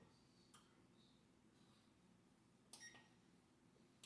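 Near silence, with a soft click about half a second in and a faint short beep about three seconds in, from an oven's control panel being set to bake.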